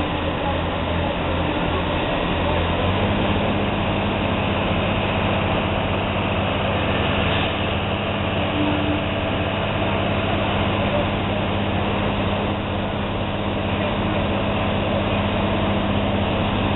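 Fire engine pump engine running steadily at a large fire: a low engine hum that settles to a steady pitch about three seconds in, over a continuous rushing noise.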